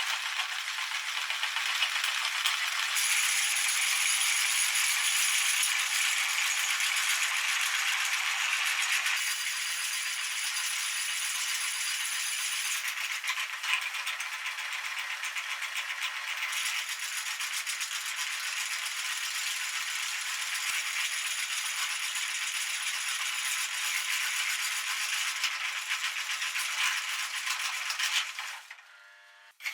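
Meat grinder running while toilet paper is fed through it: a steady rattling noise that cuts off shortly before the end.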